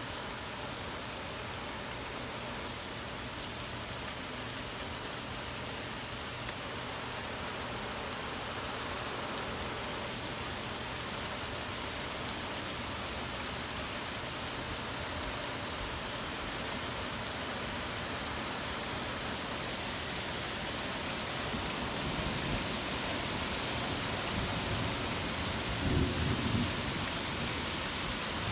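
Torrential rain falling steadily in a thunderstorm, a dense even hiss, with a low rumble of thunder building about three-quarters of the way through and peaking near the end.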